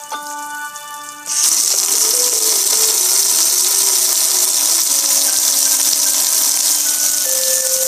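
Water spraying and cascading over a metal gas grill, a loud steady hiss that starts suddenly about a second and a half in. Under it a simple tune of single notes plays; before the water starts there is a short held tone.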